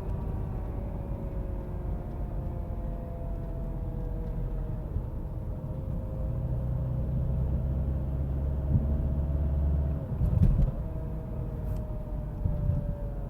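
Subaru driving with a steady whine, two thin tones that slowly fall in pitch as it goes, over low road and engine rumble; its cause is not known. A few bumps or knocks come about ten seconds in.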